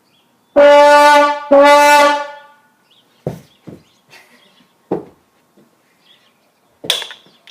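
Two long, loud blasts of a steady brassy horn tone, one right after the other, followed by a few soft knocks.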